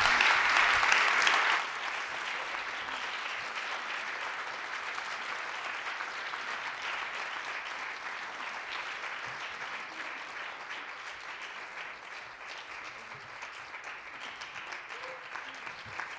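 Audience applauding. It is loud for the first second and a half, then drops sharply to lighter clapping that slowly fades.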